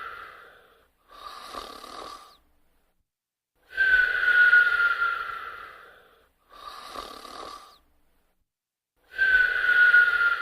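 Sleep snoring with a whistle: long, louder whistling breaths that sag slightly in pitch alternate with shorter, quieter whistling breaths, about one full breath cycle every five seconds.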